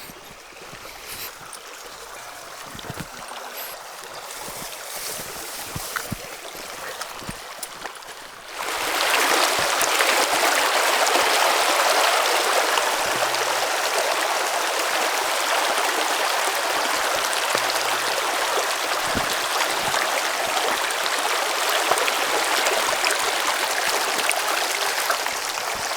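Creek water rushing over rocks, a steady hiss; faint at first with a few light footstep ticks, then suddenly much louder and closer from about eight and a half seconds in.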